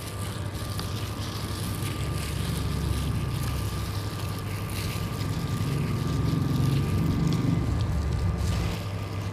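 Gloved hand squishing and kneading sliced pork in a wet egg-and-cornstarch marinade in a glass bowl, heard as a low rumbling handling noise over a steady hum; the rumble thickens about two seconds in and eases near the end.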